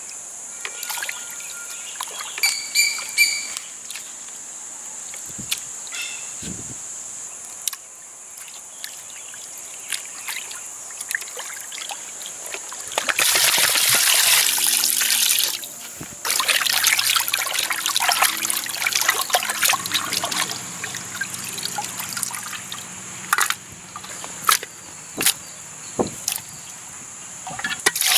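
Water being poured from a vessel over cut fish pieces in a clay pot, splashing and trickling. There are two loud pours about halfway through, and a third starts at the very end. Before and between the pours come quieter, scattered splashes as the fish are rinsed by hand in water.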